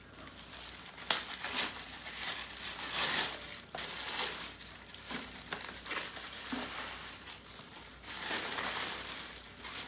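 Purple tissue paper crinkling and rustling as it is unwrapped from a gift, in irregular bursts, loudest about a second in and around three seconds.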